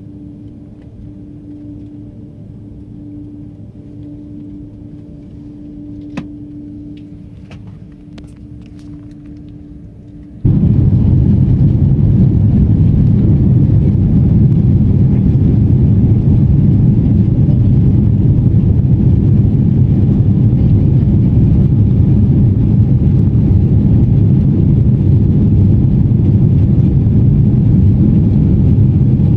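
Airliner cabin noise: a steady low hum with a faint steady tone while still over the runway, then about ten seconds in an abrupt jump to a loud, steady low rumble of the engines and airflow in the climb.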